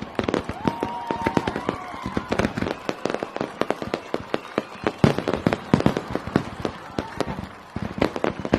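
Fireworks display: a dense, irregular run of sharp bangs and pops, several a second.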